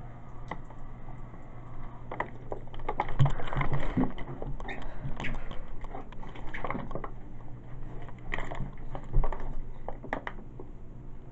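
Liquid splashing and trickling into a toilet bowl, with irregular clicks and knocks from handling, loudest about three to five seconds in and again near nine seconds, over a steady low hum.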